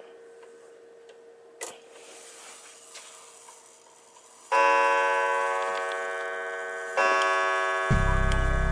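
Kieninger mechanical wall clock ticking faintly, then striking twice on its coiled gong about two and a half seconds apart. Each strike rings long with many overtones and dies away slowly. A low rumble comes in near the end.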